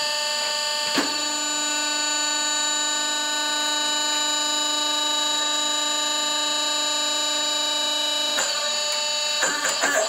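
Hydraulic forging press's power pack running: the VFD-driven electric motor and pump give a steady whine made of many fixed tones. About a second in there is a clunk and a lower hum joins, as the ram is driven down onto a hot leaf spring between cold dies. The hum drops out about 8.5 s in, followed by a few short knocks near the end.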